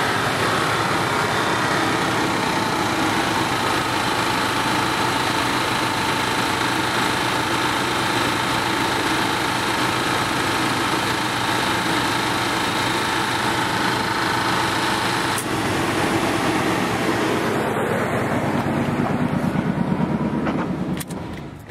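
Truck engine running with its belt-driven car A/C compressor, converted to an air compressor, pumping air into a small tank. The compressor is a little noisy, which the owner puts down to it being low on oil. A steady whine drops out about fifteen seconds in, and the engine shuts off near the end.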